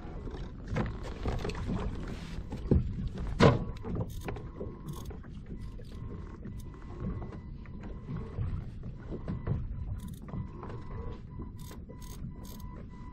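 Knocks and clatter of gear being handled in a fishing kayak, with two louder knocks about three seconds in and a faint steady whine underneath.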